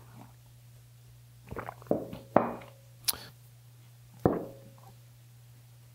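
Handling noises on a wooden workbench: a handful of knocks and thunks as a ceramic coffee mug is set down and a subwoofer driver is picked up and turned in the hands, a couple of them with a short ringing tone, and a sharp click about three seconds in. A low steady hum runs underneath.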